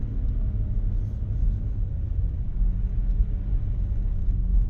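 A car driving on snowy roads: a steady low rumble of engine and tyres.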